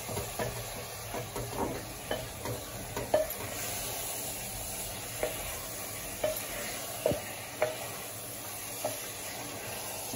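Mutton, onions and tomatoes sizzling in oil in a pressure cooker pot while being stirred, the spatula scraping and tapping against the pot at irregular moments over a steady sizzle.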